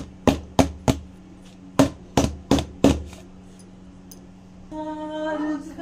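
Stainless-steel bowl of cake batter being tapped down on a hard surface, eight sharp knocks in two quick groups of four, to knock the air bubbles out of the batter. A voice comes in near the end.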